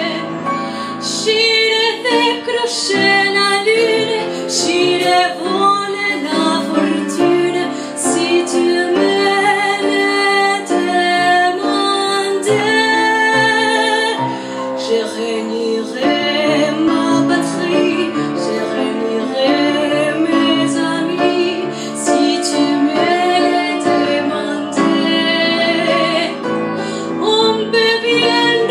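Woman singing a French chanson into a microphone, her voice wavering with vibrato, accompanied by an upright piano.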